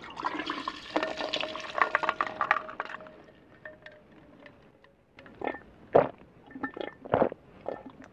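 Milk tea poured from a bottle into a large glass over ice, with ice cubes clinking and a steady pouring tone, for about three seconds. After a short lull come several separate gulps as it is drunk from the glass.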